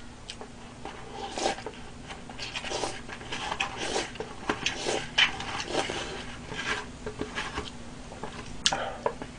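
Chopsticks scraping and clicking against a disposable soup bowl held to the mouth while the last of the soup is sipped and eaten: short, irregular scrapes and clicks, a few a second.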